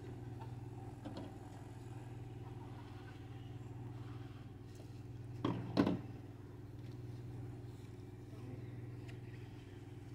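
A steady low mechanical hum, like a motor or engine running, with a brief louder sound about five and a half seconds in.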